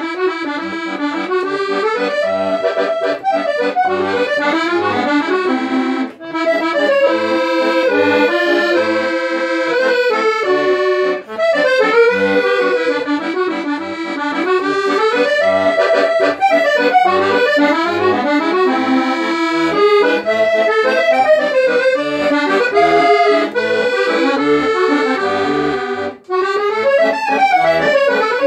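Italian Elkavox 83 piano accordion, 120-bass with four-voice musette reeds, playing a musette waltz: a moving right-hand melody over a regular pulse of low bass notes, with brief breaks between phrases.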